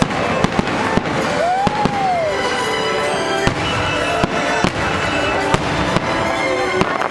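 Aerial fireworks shells bursting: about a dozen sharp bangs, irregularly spaced, over continuous music.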